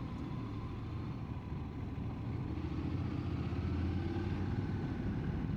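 Motorcycle engine running steadily while riding, growing a little louder about halfway through as it pulls harder.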